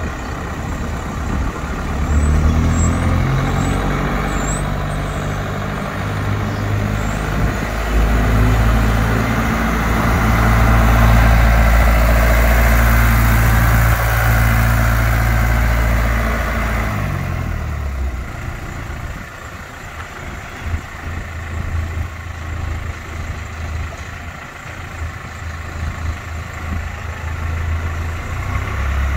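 TUG MA50 baggage tractor's engine running as the tractor drives up, passes close by and pulls away. The engine note steps up about two seconds in, is loudest about halfway through, then drops in pitch and fades as the tractor moves off.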